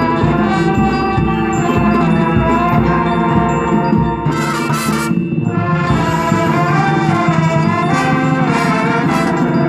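High school marching band playing, brass and percussion sustaining loud chords, with a brief accented hit about halfway through.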